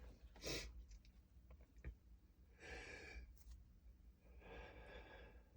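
A man's faint breathing between stifled sneezes: a short breath about half a second in, then two longer, soft breaths about three and five seconds in, with a few faint clicks of the mouth between them.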